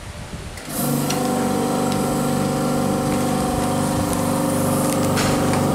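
M16 vacuum sealer's vacuum pump motor starting about a second in and then running steadily, drawing the air out of the bag.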